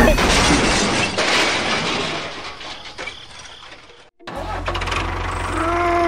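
Crash and breaking sound of a collision: a loud smash that fades away over about four seconds. After a brief cut to silence, a low engine rumble starts.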